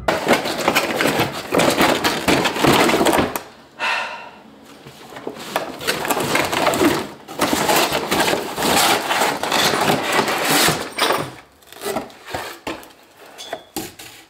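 Crackling and rustling of the RC car's cardboard and plastic packaging being handled and pulled at up close, as the car is worked out of its box. Dense, with many small clicks, easing off for a moment about four seconds in and again near the end.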